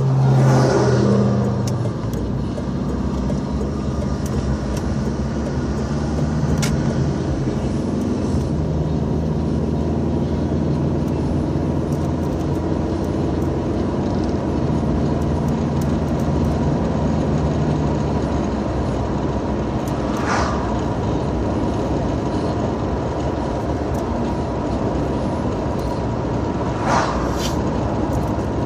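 Car engine and road noise heard from inside the cabin while driving. It is louder as the car pulls away in the first couple of seconds, then settles into a steady drone at road speed, with a few brief higher sounds over it.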